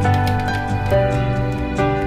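Background music: soft, gentle instrumental with sustained notes over a steady bass line.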